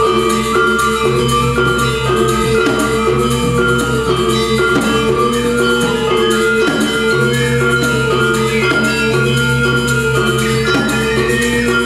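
Balinese gamelan ensemble playing: bronze metallophones ringing in fast, regular note patterns over drums and low sustained gong tones.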